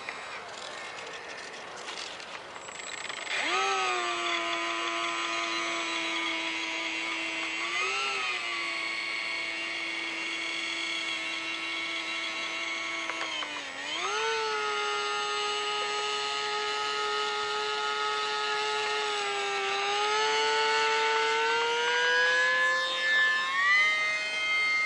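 ParkZone ICON A5 ultra-micro RC flying boat's small electric motor and propeller whining under throttle. The whine starts about three seconds in, holds steady, dips and then jumps higher about halfway through, and climbs again near the end as the throttle is pushed up.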